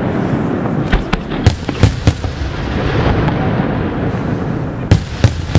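Aerial fireworks display: a steady, dense crackling from a sky full of glittering stars, broken by several sharp bangs of shells bursting, the loudest about two seconds in and again near the end.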